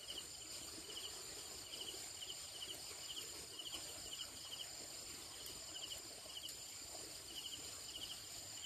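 Night insect chorus of crickets: a steady high-pitched trill with a short chirping call repeating about twice a second.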